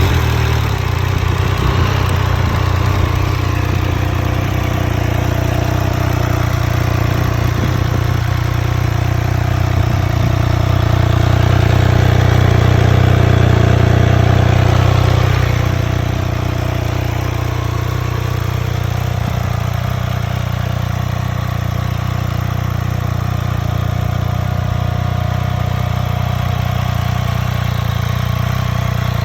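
Triumph Speed Triple 1200 RS inline three-cylinder engine idling steadily through its stock exhaust. It runs somewhat louder for a few seconds in the middle, then settles back to idle.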